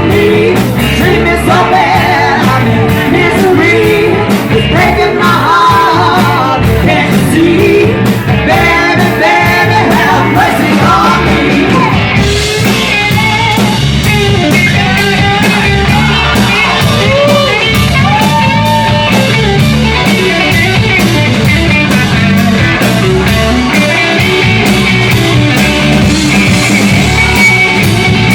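Rock song playing loud and steady, with a sung vocal over electric guitar, bass and drums keeping a regular beat.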